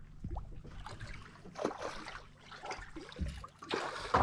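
Water splashing and sloshing in irregular bursts as a hooked barramundi thrashes at the surface close beside a small boat.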